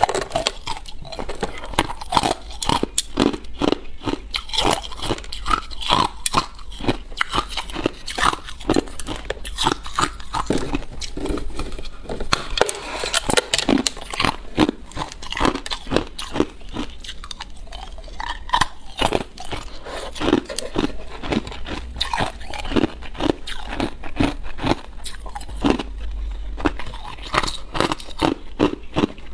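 Ice being bitten and chewed close to the microphone: a steady run of sharp, crisp crunches several times a second, with brief lulls between mouthfuls.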